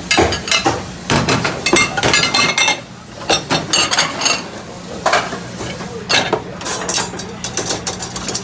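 Dishes and cutlery clattering and clinking as they are handled at a dish station, in quick irregular knocks, over a steady low machine hum.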